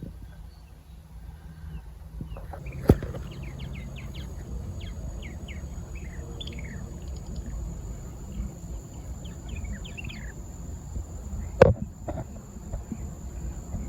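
Small birds chirping in a quick run of short, falling notes, over a low steady rumble. A sharp click comes about three seconds in and a knock near the end.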